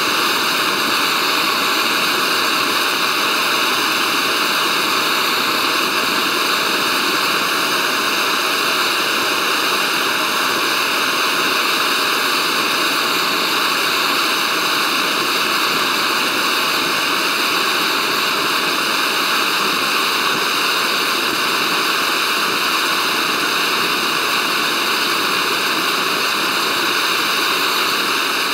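MSR Pocket Rocket gas canister stove burning steadily under a titanium pot: an even, unbroken hiss, with the valve not turned up to full flame.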